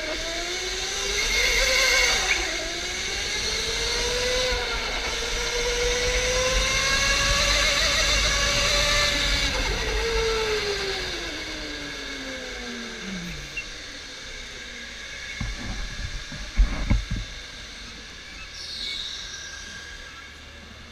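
OTL Storm electric go-kart's motor whining, its pitch rising and falling with speed, then dropping steadily and fading as the kart slows, about ten to thirteen seconds in. A few sharp knocks follow a little later, then only a faint hiss.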